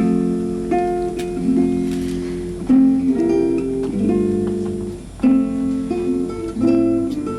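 Acoustic guitar playing the bride's processional, with ringing chords that change about once a second.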